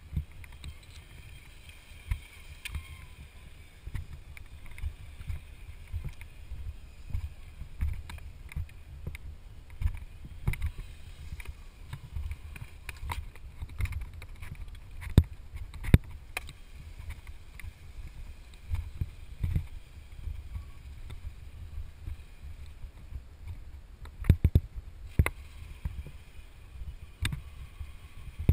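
Wind rumbling on the microphone, with scattered sharp knocks and clicks, a few louder ones around the middle and near the end.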